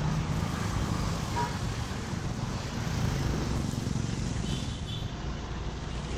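Honda Click 125i scooter being ridden along a road: its single-cylinder engine running steadily under road and wind noise, with no change in speed.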